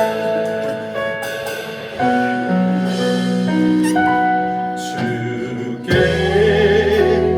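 Worship band's slow introduction on keyboard, with held chords. The band comes in fuller with bass about six seconds in, as a singer starts the first line of the hymn.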